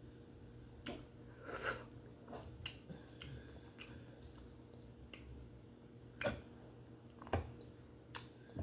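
Close-up chewing of steamed conch: scattered wet mouth clicks and smacks, about six of them, the loudest a little over a second in and around six and seven seconds in, over a faint steady hum.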